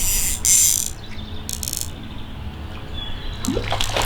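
Fly reel's click-pawl drag ratcheting in quick bursts as line runs off or is wound in, loudest about half a second in and again briefly around a second and a half. Birds chirp near the end.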